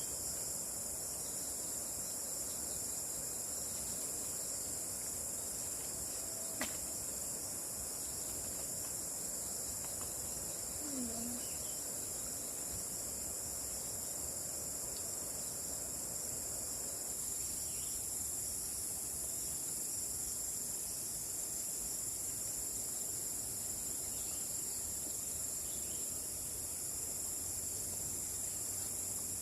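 A steady, high-pitched chorus of insects drones without a break, with a single faint click about six seconds in.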